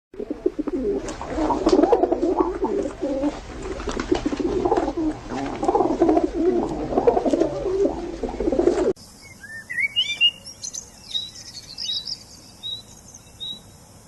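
Birds calling: a dense, low chorus of calls with many sharp clicks for about nine seconds, then an abrupt switch to a few short, high, rising chirps.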